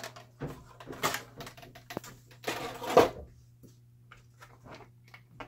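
Clicks and knocks of a hard-plastic RC stunt truck and its body shell being handled on a tabletop. The loudest knock comes about three seconds in.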